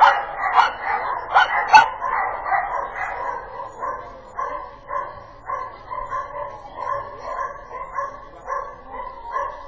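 A dog barking over and over: a quick, loud run of barks in the first two seconds, then a steady beat of about two barks a second.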